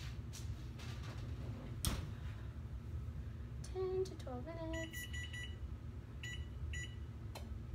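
A knock about two seconds in, then the electronic beeps of an oven's control panel as its cooking timer is keyed in and started: a quick run of about five beeps, then two single beeps half a second apart.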